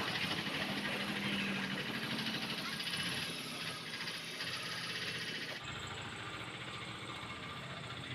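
A machine's engine running steadily with a hiss, the sound changing abruptly about five and a half seconds in.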